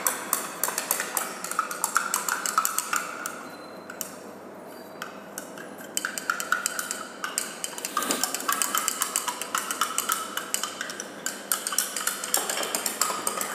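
Glass stirring rod clinking quickly against the inside of a glass beaker, several light clicks a second, as potassium sulphate and aluminium sulphate are stirred into hot water to dissolve. The clinking drops away for a couple of seconds about four seconds in, then resumes.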